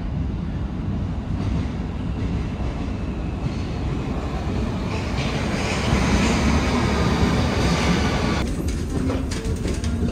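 Steady low mechanical rumble. A hissing noise swells in the middle and drops away about eight and a half seconds in, followed by a few clicks.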